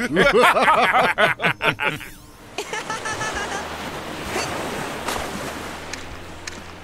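Several cartoon characters laughing heartily together for about two seconds, then, more quietly, the steady rush of ocean waves and surf.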